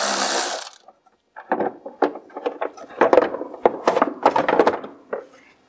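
A cordless ratchet whirs briefly, driving out the last 8mm bolt, then stops. After a short pause comes a run of knocks, clicks and scrapes as the hard plastic CVT clutch cover is worked loose and pulled off.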